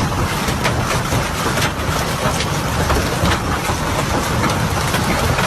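Heavy hail pelting down hard: a dense, steady clatter of strikes with sharper individual hits standing out, over a deep rumble.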